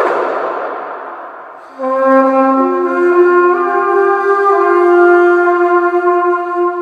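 Carnyx, the Iron Age Celtic bronze war trumpet, being played: a rough, buzzing blast dies away, then after a brief dip come long held notes, stepping up in pitch.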